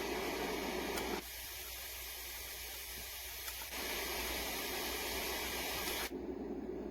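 Sleep sound machine playing steady white-noise-type sounds, switching abruptly to a different noise three times: a thinner, quieter hiss about a second in, a fuller hiss partway through, and a deeper, duller noise near the end.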